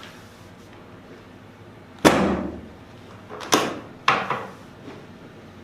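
Three sharp clacks of chiropractic adjustment thrusts: one about two seconds in, the loudest, then two more about half a second apart near the end, each dying away quickly.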